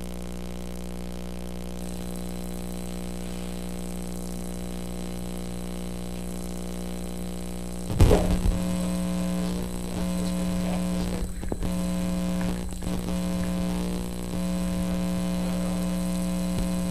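Steady electrical mains hum and buzz. About halfway through there is a sudden knock and rumble, after which the hum is louder and cuts out briefly twice.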